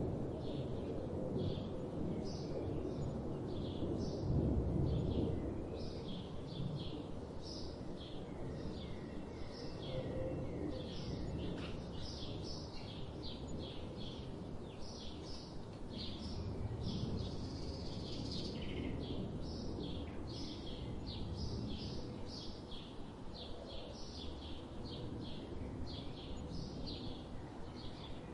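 Small songbirds chirping and singing, many short high notes coming in quick, overlapping runs, over a steady low background rumble.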